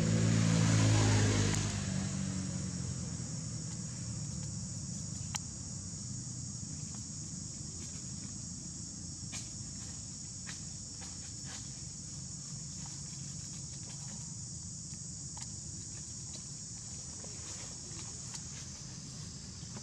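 Steady high insect drone in forest ambience, with a motor vehicle passing at the start and fading within about two seconds, leaving a low background rumble. Scattered light clicks and rustles of dry leaf litter.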